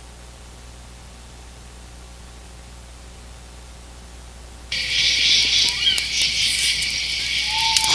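Faint low hum, then about halfway through a recorded outdoor ambience sound effect cuts in suddenly: a steady high hiss with a few short bird chirps.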